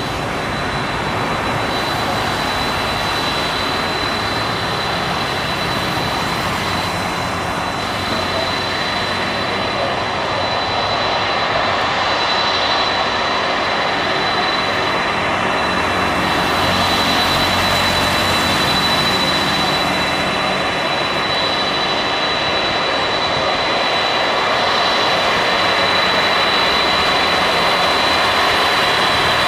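Boeing 747 freighter's jet engines running, a loud steady rush with a fixed high whine over it, growing slowly louder.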